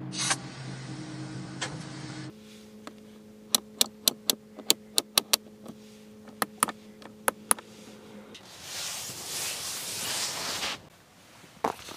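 A string of sharp clicks, about fifteen over six seconds, from a Bentley Flying Spur's centre-console buttons being pressed, over a steady hum. A soft rushing noise follows for a couple of seconds.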